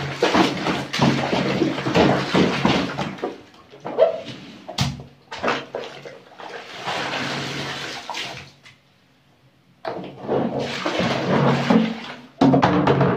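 Bare feet treading clothes in a plastic basin of soapy water, sloshing and splashing, with a sharp knock about five seconds in and a short lull near nine seconds. Near the end the basin is tipped and the water pours out onto a tiled floor.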